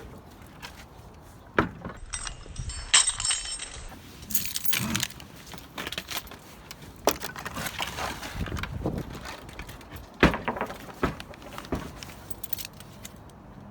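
Irregular clinking, rattling and knocking of junk being handled in a dumped trash pile, with a few sharper knocks.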